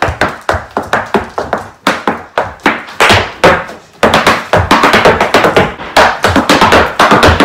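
Irish dance hard shoes beating out rhythmic taps and stamps on a hard floor. The strokes come faster and louder from about halfway through.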